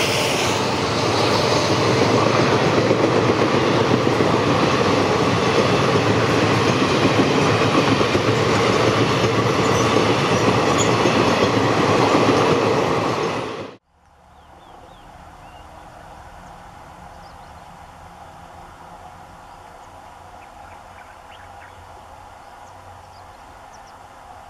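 A train running past on the rails, a loud steady rumble with wheel clatter, cut off abruptly about 14 seconds in. It is followed by a faint, steady outdoor background with a few faint high chirps.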